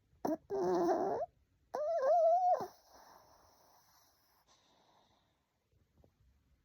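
A sleeping dog gives two drawn-out, wavering whimpers, each about a second long, the second one higher.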